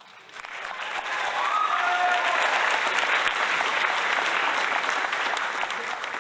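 Crowd applauding: dense clapping that swells in over the first second, holds steady, and starts to fade near the end.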